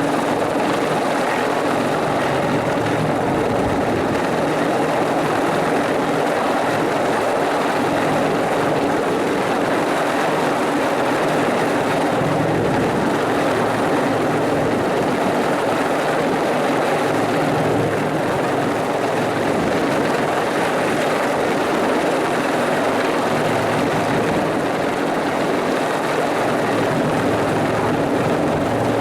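Bell 412 twin-turbine helicopter running steadily, a loud, even blend of main-rotor beat and turbine sound that holds throughout.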